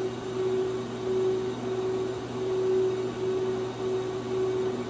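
Steady mechanical hum with a pitched whine over an even hiss; the whine drops out briefly now and then.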